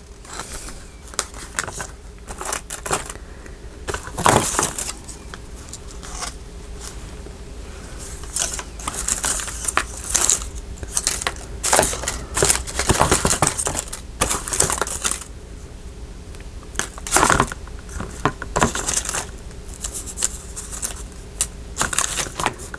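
Hands rummaging through small craft embellishments, some of them hard plastic butterflies: irregular rustling with light clicks and taps.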